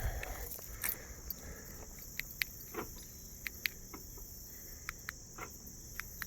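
Steady high insect chirring, cricket-like, with scattered short light clicks and taps over it.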